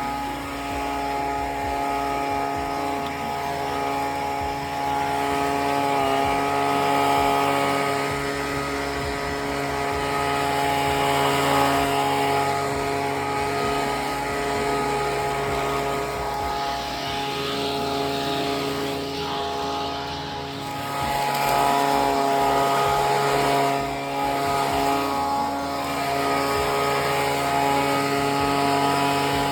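Small engine of lawn equipment running steadily under load while clearing leaves, its pitch holding constant and its loudness swelling and easing a little.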